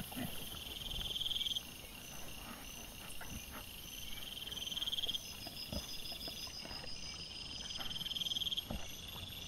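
Night insects chirping: high, pulsing trills that come in spells of about a second every few seconds, over a faster run of short high chirps. Faint scattered knocks and rustles lie beneath.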